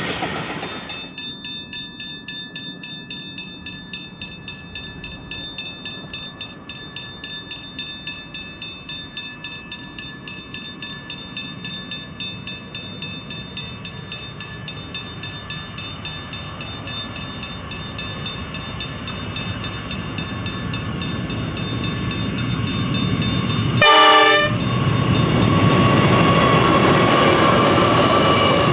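GE Cv40-9i diesel-electric locomotives approaching with a container freight train. A steady high whine slowly grows louder, then near the end a short horn blast sounds and the engine and wheel noise grows loud as the lead locomotives pass.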